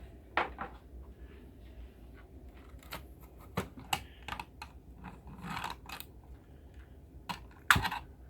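Irregular small clicks and knocks of objects being handled, with the loudest knock near the end, over a low steady hum.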